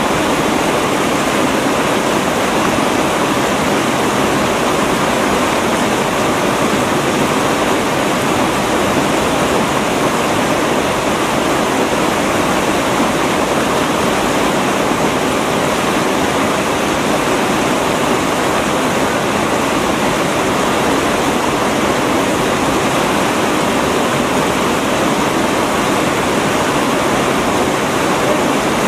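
White-water river rapids rushing steadily over boulders, an even, unbroken noise of fast water.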